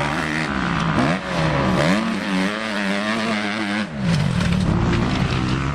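Motocross dirt bike engine revving up and down in quick rises and falls, then held high and wavering for about two seconds. Near four seconds it drops away briefly and gives way to a rougher, fuller engine sound as a bike passes close.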